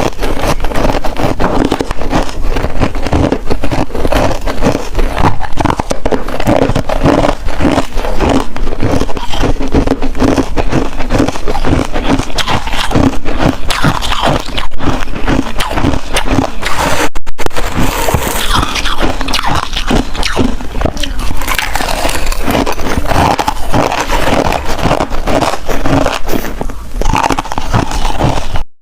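Hard ice being bitten and chewed close to the microphone: a loud, dense run of crunches and cracks, with a brief pause about two-thirds of the way through.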